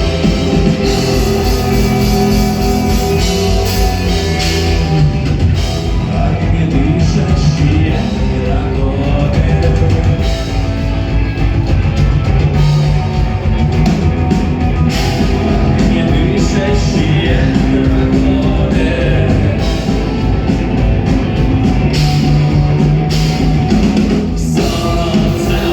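Rock band playing a song live, with a singer over drum kit and guitars.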